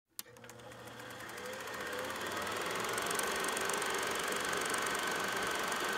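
Film projector switched on with a click and coming up to speed: a rapid, even clatter of the film mechanism with a motor whine. It grows louder over the first few seconds, then runs steadily.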